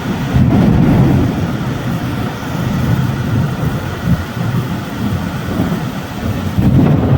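Rolling thunder rumbling low over the steady hiss of heavy rain, the rumble swelling near the start and again near the end.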